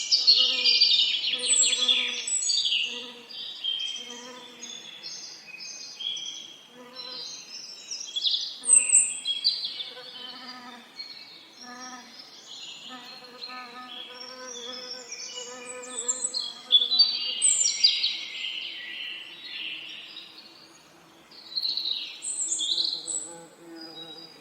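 Songbirds singing in overlapping chirps and quick trills, loudest about a second in and again around two-thirds of the way through, over the low, wavering hum of bees buzzing that swells and fades in short stretches.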